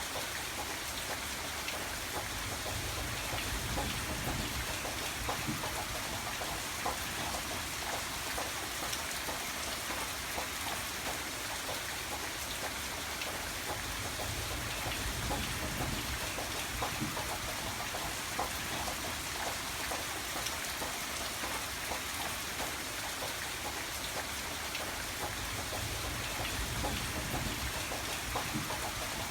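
Steady rainfall, a continuous hiss dotted with many small, separate drop ticks.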